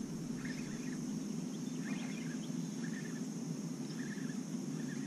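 Steady high insect drone with a few faint, short bird chirps, over a low steady background noise.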